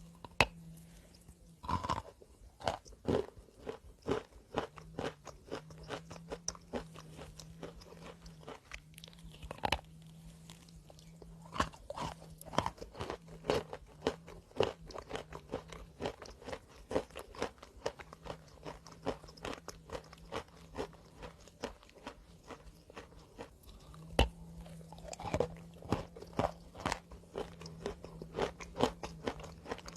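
A person biting into and chewing crunchy chalk, close to the microphone: a dense run of sharp crunches and crackles, with a few harder bites standing out. A faint low steady hum comes and goes underneath.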